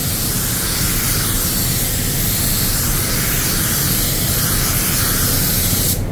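Walcom Slim X Light 1.3 spray gun spraying varnish on air at 2.4 bar: a steady loud hiss of atomising air that cuts off suddenly near the end as the trigger is released.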